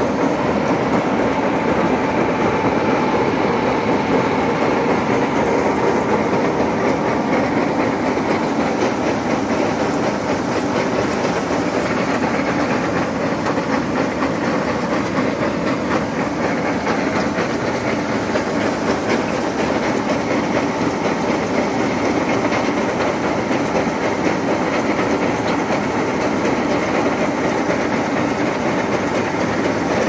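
Kubota combine harvester running steadily while its unloading auger pours grain, a dense even mechanical rattle with a hiss over it.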